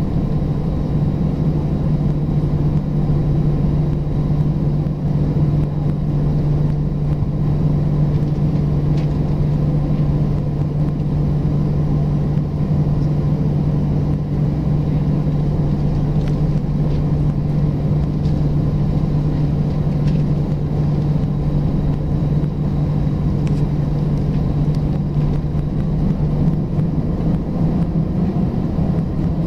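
Airbus A319 airliner cabin noise with the jet engines at idle, heard from inside the cabin: a steady low rumble with one strong, even drone that steps up slightly in pitch near the end.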